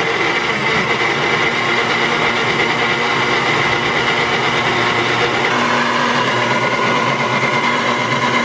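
Electric countertop blender running steadily at speed, blending a carrot and fruit mix into juice. Its motor tone changes slightly about five and a half seconds in as the blend smooths out.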